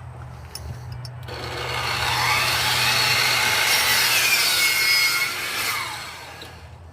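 Electric miter saw cutting a wooden board: the motor whines up about a second in, the blade runs loud through the wood, then the whine falls away as the saw winds down near the end.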